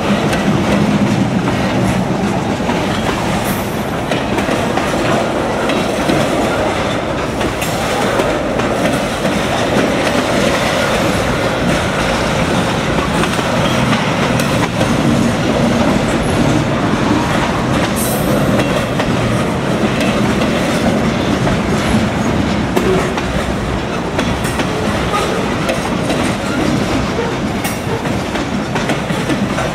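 Freight cars of a mixed freight train, lumber-loaded centerbeam flatcars and boxcars, rolling past close by: a steady loud rumble of steel wheels on rail, with occasional sharp clicks.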